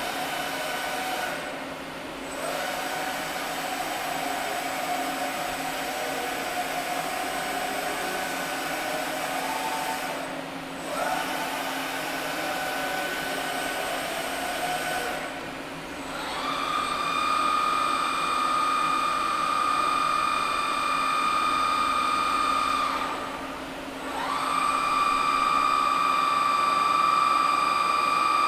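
Doosan DBC-130L-II CNC horizontal boring mill's axis drive whining steadily as the table traverses, ramping down and back up at each of four short stops between moves. From about halfway through, the moves whine higher-pitched and louder.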